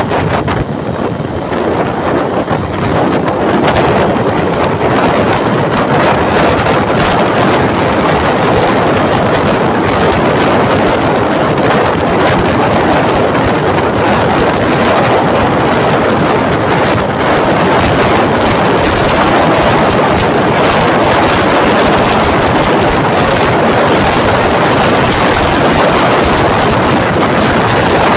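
Loud, steady wind rush over the microphone of a phone held out from a moving motorcycle.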